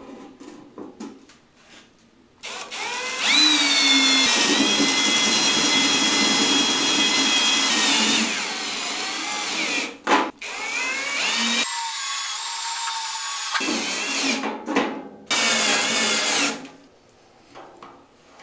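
A Ridgid cordless drill drives self-drilling screws through 18-gauge galvanized sheet steel. The motor whine climbs as it starts, runs steadily for several seconds, stops briefly about ten seconds in, then runs again in shorter spells. Light handling clicks come before and after.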